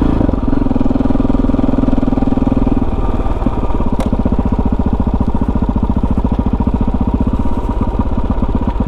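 KTM 640 Adventure R's single-cylinder engine running at low revs while the bike is ridden slowly over snow. About three seconds in, the note drops into a slower chugging with separate, even firing beats.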